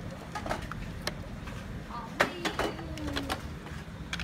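Hard plastic toy figures clicking and knocking together as they are handled, several sharp clicks with the loudest about two seconds in, over a low steady background hum.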